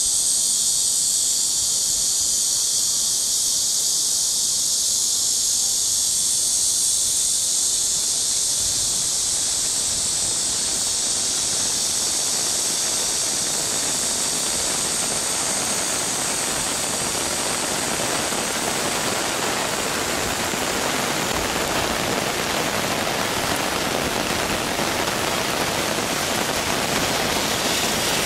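Steady hiss, at first high and thin, that gradually fills out over the middle into a full, even rush of rain falling on water.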